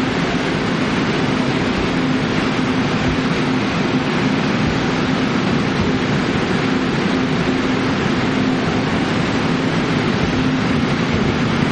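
Locomotive-hauled Chu-Kuang express coaches rolling out of the station, a steady noise of wheels on rail with a low hum that fades in and out.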